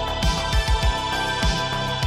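Electronic background music with a kick-drum beat.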